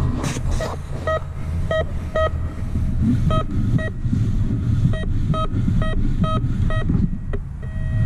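Garrett GTA 1000 metal detector giving repeated short beeps, all at one pitch, often in quick pairs as the coil is swept back and forth over a buried target. A constant low rumble runs underneath.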